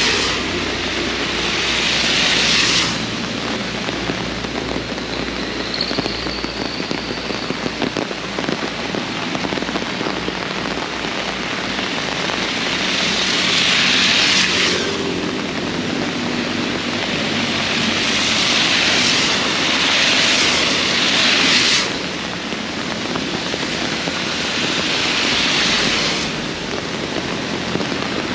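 Very heavy rain pouring steadily, swelling louder in several surges of a few seconds each. A low rumble runs under it for the first several seconds, then fades.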